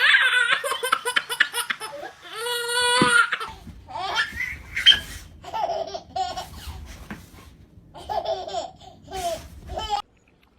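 Laughter in repeated bursts that stops abruptly near the end.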